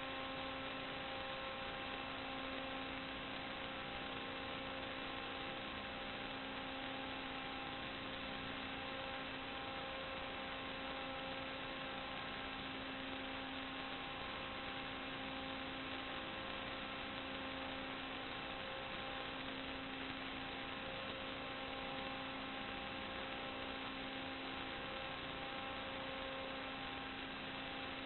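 Steady electrical hum with several fixed tones over an even hiss, unchanging throughout.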